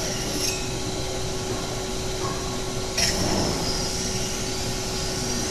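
Catalytic converter shell production machine running with a steady hum and a steady tone, with one short sharp click and hiss about three seconds in.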